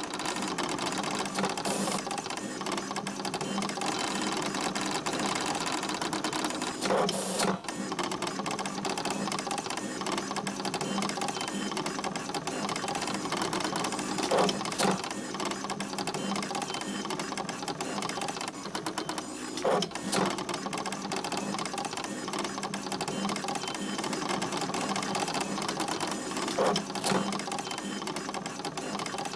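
A printing machine clattering steadily as paper runs through it, with a louder knock every six or seven seconds.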